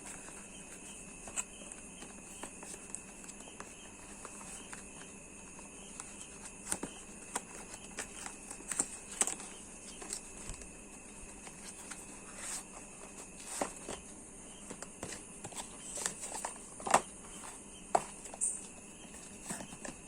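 Cardboard product box being opened and its packaging handled: scattered clicks, taps and rustles, with a few sharper knocks in the second half, over a faint steady high-pitched background tone.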